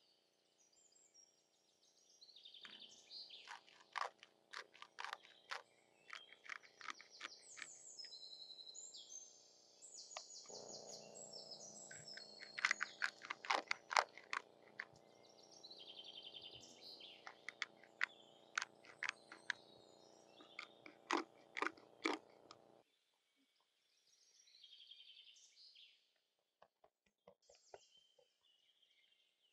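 Crisp crunching and clicking from food preparation, a quick run of sharp cracks, with small birds chirping and twittering in the background.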